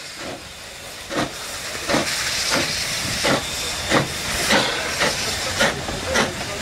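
Small steam tank locomotive pulling away with its train: exhaust chuffs come about once a second at first and quicken to almost two a second, over a steady hiss of escaping steam.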